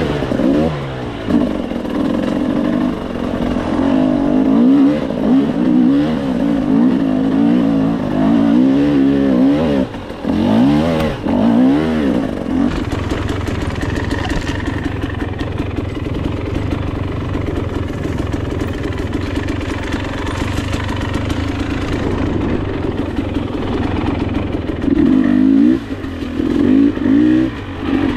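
Dirt bike engine revving up and down as the bike is ridden over a trail, its pitch rising and falling with the throttle. About halfway through it settles into steadier, lower-pitched running, then revs up and down again near the end.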